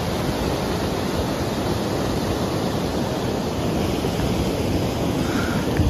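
Steady rushing of a mountain stream, with wind buffeting the microphone.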